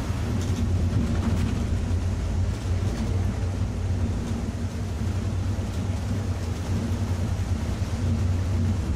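Steady drone of a Volvo B7R coach's diesel engine and its tyres on a wet road, heard inside the cabin, with heavy rain on the windscreen.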